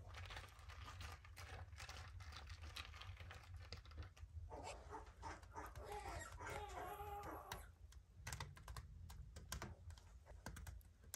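Light clicking and rustling of tortilla chips being laid into a cast-iron skillet and toppings dropped onto them. A brief wavering whine sounds about halfway through.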